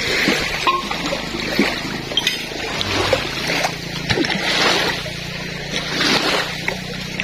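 Shallow lake water lapping and splashing gently around people sitting in it, with the low steady hum of a boat engine underneath that grows a little stronger partway through.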